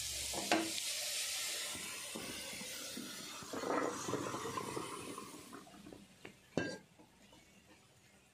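Diced bitter gourd sizzling in hot sesame oil in a pan, the hiss dying away after about five seconds as the pieces come off the heat. A spatula scrapes the pieces out onto a steel plate, with a couple of sharp knocks, the last near the end.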